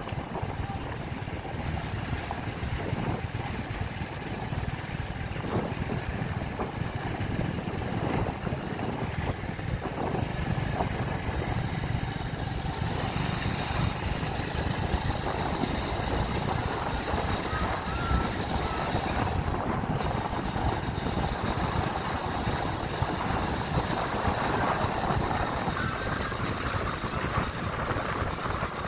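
Riding noise from a motorcycle at speed: steady wind buffeting the microphone over the drone of the engine.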